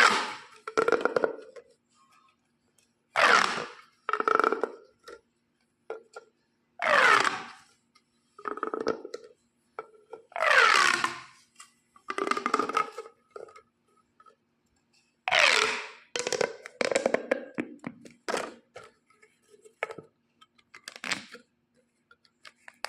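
Plastic pop tube toy being stretched and pushed back together, about five times: each pull gives a loud sweep falling in pitch, followed by a shorter, steadier rasp.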